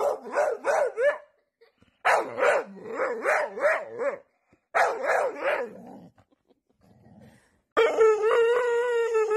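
Pit bull 'talking': three bouts of quick, wavering howl-like yodels with short pauses between them, then a long, loud, wavering howl starting near the end. This is the grumbling, complaining kind of vocalising that dogs do when they talk back to their owner.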